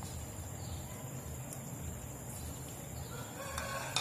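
A steady low hum, with one drawn-out animal call held on a fairly even pitch near the end.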